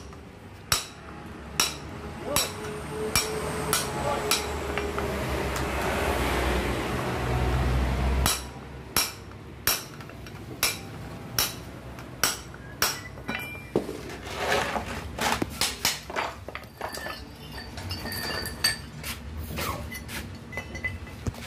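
Steel hammer striking a punch against the metal parts of a truck's exhaust brake, about one blow every second for the first dozen seconds. Lighter, irregular metallic clinks of parts and tools follow. Under the first blows a low rumble swells and then cuts off about eight seconds in.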